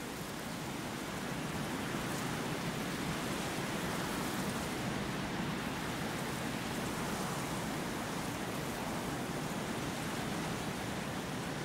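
Steady rushing noise of wind, growing a little louder over the first couple of seconds and then holding even.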